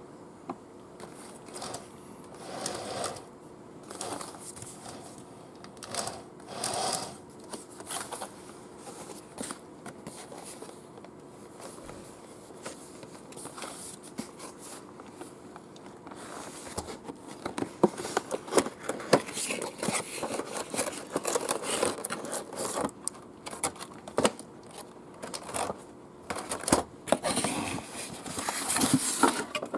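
Cardboard toy box being handled: occasional short slides and scrapes of cardboard, then from about halfway a busy run of small clicks, rubs and taps as the box is opened and its contents are shifted.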